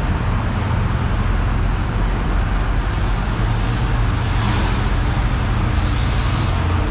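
Steady low rumble of motor traffic, unbroken throughout.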